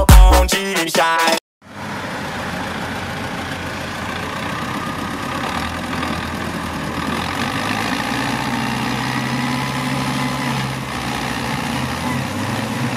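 Dance music with a steady beat cuts off about a second and a half in. Then the diesel engines of farm tractors run steadily as they drive over and pack chopped maize on a silage clamp, the engine note growing a little louder in the second half.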